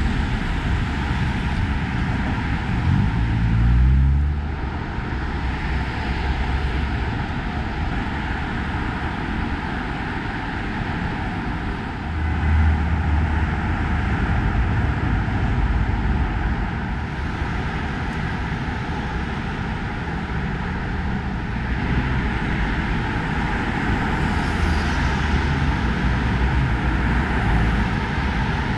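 Steady noise of heavy traffic on a wide city avenue. About three to four seconds in, one vehicle's engine rises in pitch as it accelerates past, and a deeper rumble of another vehicle swells about twelve seconds in.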